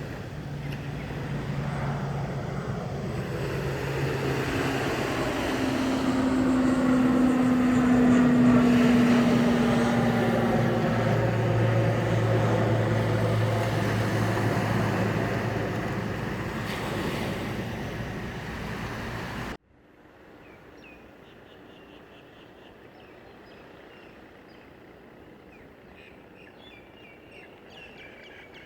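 A jet airliner passing low overhead, its engine noise swelling to a peak about eight seconds in, with a steady drone that drops in pitch as it goes by, then fading. About two-thirds of the way through it cuts off abruptly to a much quieter background with faint high chirps.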